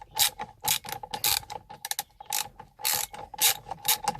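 Ratchet wrench with a 16 mm socket clicking in quick irregular strokes as it backs out the steering wheel's centre bolt.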